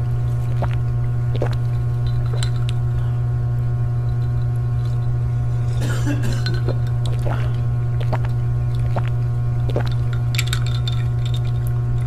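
Scattered clinks of glass and sips from drinking glasses over a loud, steady low hum that cuts off abruptly.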